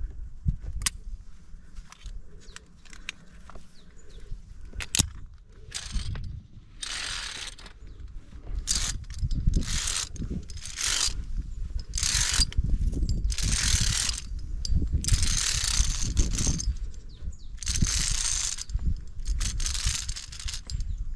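Via ferrata lanyard carabiners clicking, then scraping along the steel safety cable in repeated rasps of about a second each as the climber moves.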